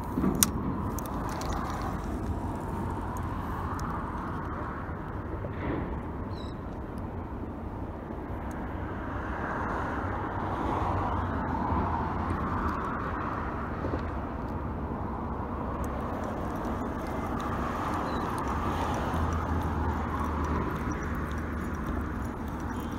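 Road traffic crossing a bridge: cars pass one after another, each swelling and fading as a rushing sound over a steady low rumble. A single sharp knock about half a second in.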